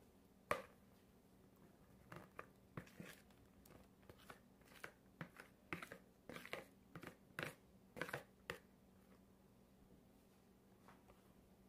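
Faint, scattered clicks and scrapes of a plastic spoon and plastic mixing bowl as thick cheesecake filling is scraped out into a pan. The loudest click comes about half a second in.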